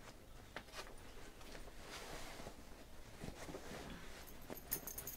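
Faint rustle of cloth and a few small clicks as a waistcoat is put on and adjusted, over quiet room tone.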